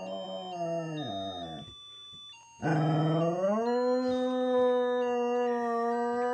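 Chocolate Labrador retriever howling along to an electronic melody. A howl falls away and stops about two seconds in. After a short pause a louder howl starts, rises in pitch and is held steady on one note.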